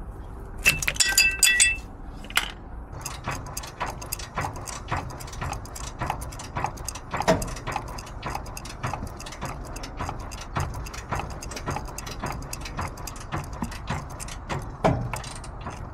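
Ratchet clicking steadily, about three clicks a second, as it turns a diesel engine over by hand on a flywheel cranking tool toward top dead centre. A brief ringing metallic clatter comes about a second in.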